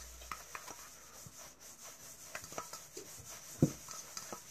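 A metal fork stirring a dry spice rub in a stainless steel bowl: faint gritty scraping with small clicks of the fork on the metal, and one sharper tap about three and a half seconds in.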